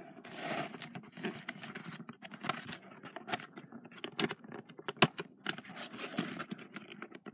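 Cardboard box being handled and worked open by hand: irregular scraping, rustling and tapping of the cardboard, with a sharp snap about five seconds in.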